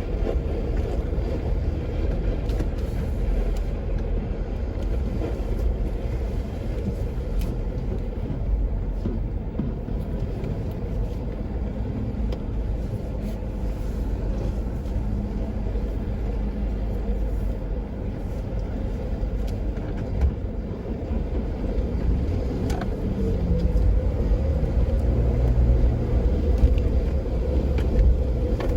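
Jeep Wrangler JK driving on a dirt trail: a steady rumble of engine and tyres with a faint hum and a few short clicks and knocks.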